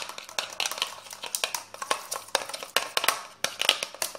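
A spoon clicking and scraping against a bowl while stirring a thickening homemade slime mixture, with several irregular clicks a second.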